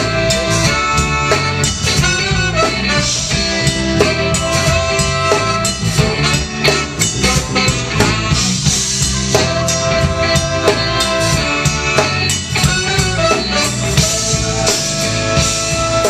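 A live band playing an instrumental passage: a drum kit keeps a steady beat under held instrument notes.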